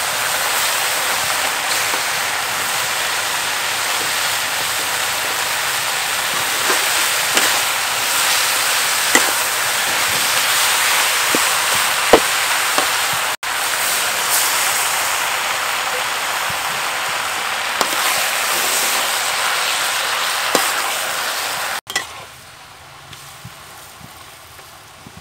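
Vegetables sizzling loudly in a hot wok as they are stir-fried, with scattered sharp clinks of a metal spatula against the wok. Near the end the sizzling drops to a much quieter level.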